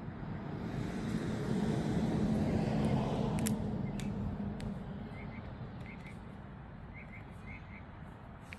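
A vehicle passing: a broad rumble that swells to a peak about three seconds in and then fades away, with birds chirping briefly in the second half.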